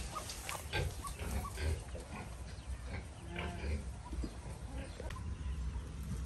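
Pigs grunting in short, scattered calls over a steady low rumble.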